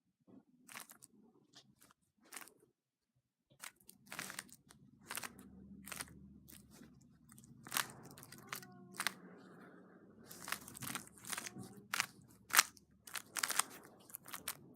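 Rubik's cube being turned by hand: irregular plastic clicks and clacks of the layers, sparse at first and coming in quicker runs from about four seconds in.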